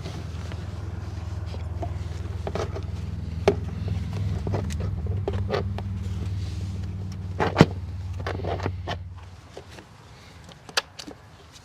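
An engine idling with a steady low hum that cuts out about nine seconds in, with a few sharp clicks and knocks over it.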